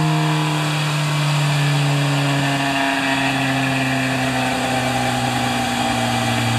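Kawasaki Z1000J's air-cooled inline-four, freshly overhauled and in the middle of its break-in, running on after the throttle is closed. The revs fall slowly and evenly, settling toward idle.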